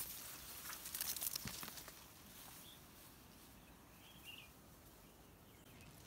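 Tall dry grass and stalks rustling and crackling as someone walks through them, loudest about a second in. Two faint short chirps, likely birds, come in the quieter middle part.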